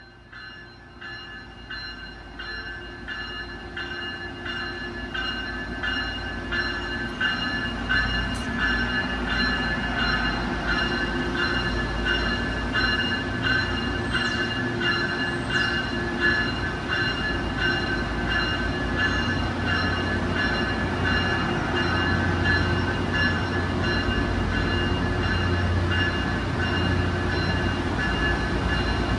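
Diesel train approaching and running past, growing louder over the first several seconds and then holding steady. A regular clatter of wheels runs under it, with a steady high ringing tone and a low engine hum that strengthens near the end.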